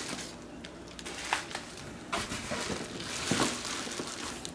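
Bubble wrap rustling and crinkling in short bursts as hands dig through a packed cardboard box, with a few faint clicks.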